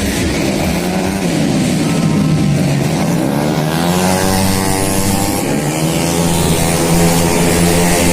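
Tuned automatic racing scooters running flat out on a race track, several engines at once, their pitch rising and falling as they rev and pass.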